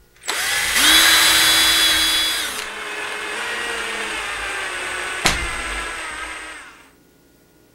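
Cordless drill-driver running as it drives a screw through aluminium T-track into a wooden fence. The motor whine rises to speed and is loudest for the first two seconds, then drops to a lower, steadier pitch under load. A single sharp click comes about five seconds in, and the motor winds down a second or so later.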